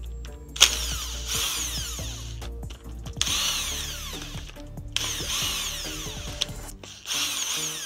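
Power tool driving in flywheel bolts in four bursts of one to one and a half seconds each, its motor whine rising and falling in pitch. Background music plays underneath.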